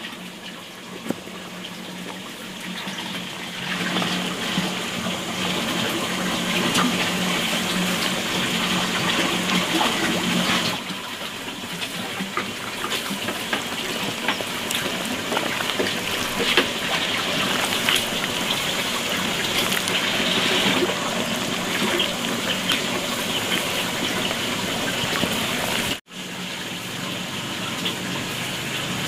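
Wet squelching and crackling of chili-paste-coated napa cabbage kimchi being squeezed and pressed by hand into a plastic jar. A low steady hum sits underneath for about the first ten seconds.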